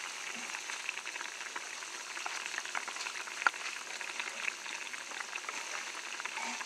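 Chicken gravy simmering in a pan, bubbling and sizzling with a steady crackle of small pops as its water cooks down. A single sharper click comes about three and a half seconds in.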